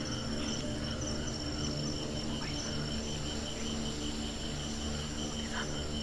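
Night insects, crickets, chirping in a steady, rapidly pulsing chorus, over a low steady hum.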